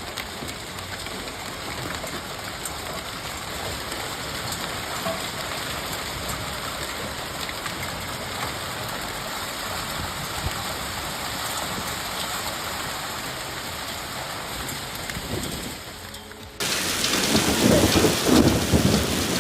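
Heavy hail and rain pelting down in strong wind: a steady, dense hiss of stones and drops striking surfaces. About 16 and a half seconds in it cuts abruptly to a louder, rougher stretch of the storm.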